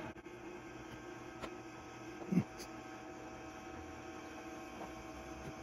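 Faint, steady electrical hum with one brief low knock about two and a half seconds in.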